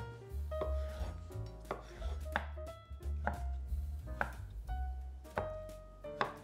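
Kitchen knife chopping a cooked beetroot into cubes on a wooden cutting board, the blade knocking against the board roughly once a second at an uneven pace.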